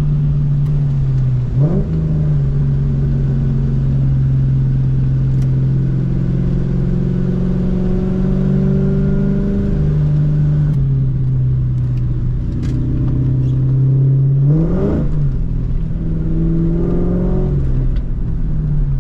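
A 2004 Mustang GT's 4.6-litre V8, running through an off-road X-pipe and Borla S-Type mufflers, drones steadily while driving. Its note changes pitch with gear changes about 2 s in, 10 s in and 15 s in.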